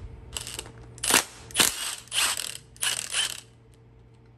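Milwaukee Fuel brushless cordless impact wrench running in about five short bursts on a fastener on an LS engine block, then stopping.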